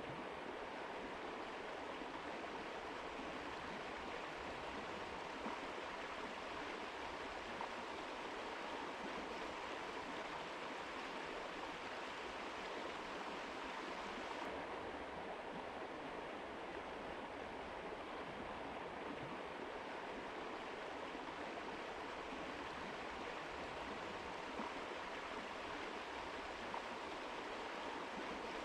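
Mountain river rushing steadily; the highest hiss thins out about halfway through.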